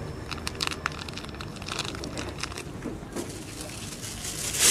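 Several cats chewing food close to the microphone: quick, irregular crunching and clicking. A louder rushing noise swells near the end.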